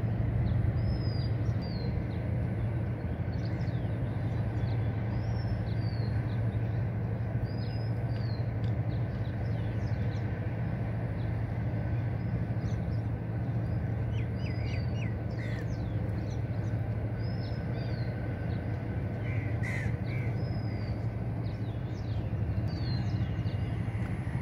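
A steady low hum with birds calling over it: short arched calls every second or two, and a few harsher calls around the middle and again near the end.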